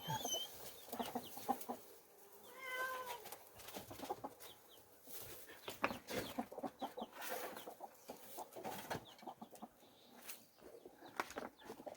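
One drawn-out animal call at a steady pitch about two and a half seconds in, among scattered short clicks and taps.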